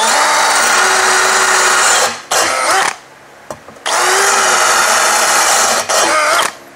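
Bosch 18 V cordless drill in plain drilling mode (no impact) driving an 8 mm Bosch Expert Hard Ceramic bit into a ceramic tile: a steady motor whine over grinding noise. It runs for about two seconds, stops, gives a short burst, pauses, then runs for about two seconds again and ends with another short burst.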